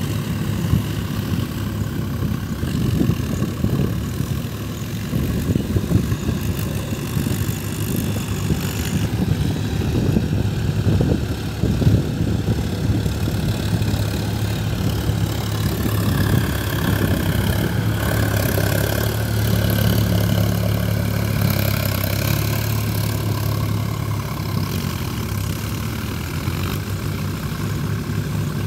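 Diesel tractor engine running steadily under load while the tractor works a flooded paddy field with a rear rotary tiller.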